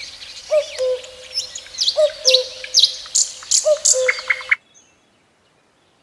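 A cuckoo calling its two-note "cuck-oo", three times: a short higher note dropping to a longer lower one. Faint high chirps of small birds sound behind it. The sound cuts off suddenly about three-quarters of the way through.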